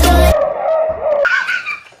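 Upbeat background music cuts off abruptly about a third of a second in, followed by a drawn-out voice and then higher-pitched laughter.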